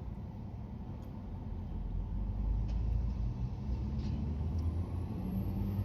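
Low steady rumble inside a car waiting at a red light, its engine idling, with a couple of faint clicks about midway.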